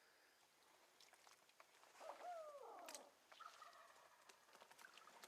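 A single bird call about two seconds in, lasting about a second and sliding down in pitch, followed by fainter bird calls.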